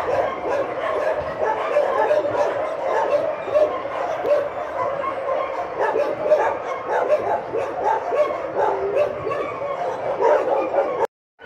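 Many dogs barking and yapping at once in an unbroken overlapping din, with a small puppy's high yaps among them. The sound cuts out briefly near the end.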